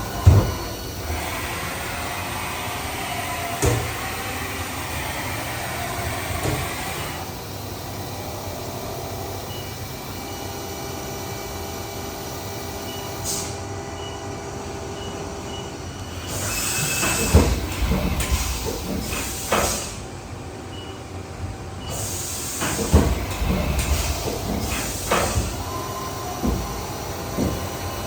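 Machine shop sound of a CNC vertical machining center: a steady mechanical hum with several held whining tones that shift a few times. Clanks and knocks come and go, most of them in the second half.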